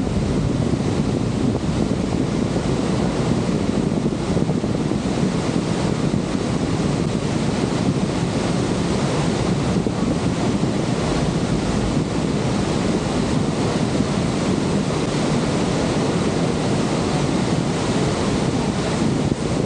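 Steady roar of Niagara Falls' rushing water, with wind buffeting the microphone underneath.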